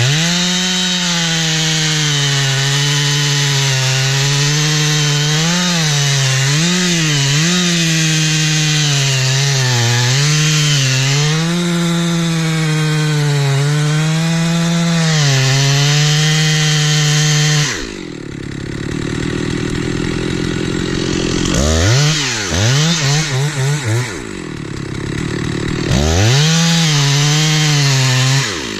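Stihl 046 two-stroke chainsaw at full throttle cutting into the tree during the felling back cut, its pitch dipping and recovering as the chain bites. About 18 s in it drops to idle, is blipped several times, then revs high once more for a couple of seconds before dropping back.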